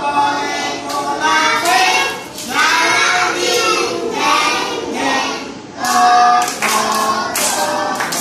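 A group of young children singing a Bengali nursery rhyme together in unison, with hand claps along to the song that stand out near the end.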